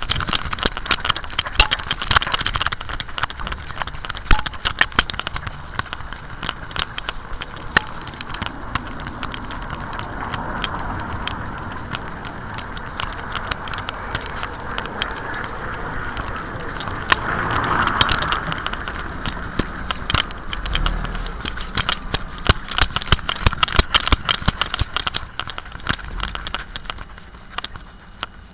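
Rubbing and rustling noise from a camera worn by a Jack Russell terrier, its fur brushing over the microphone as the dog moves, with many sharp clicks and clatters throughout. The rustling swells about two-thirds of the way in.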